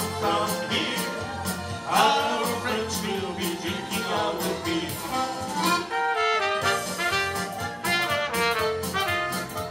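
Live Oktoberfest band music: a trumpet playing the melody over an electronic keyboard, with a steady beat of about two strokes a second. The trumpet line comes forward in the second half.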